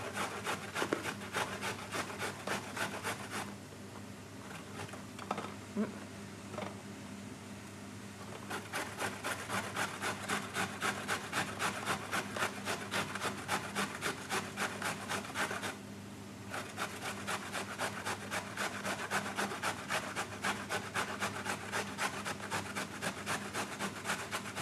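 Carrot being grated by hand on a stainless-steel box grater: a quick, even run of scraping strokes, with a quieter, sparser stretch about four to eight seconds in and a short pause about two-thirds of the way through.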